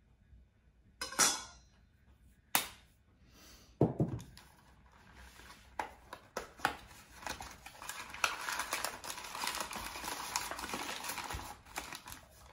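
A few sharp clinks of a spoon and bottle against a stainless steel bowl and the table, then about five seconds of crinkling and rustling as a cardboard cornstarch box and its paper lining are torn open.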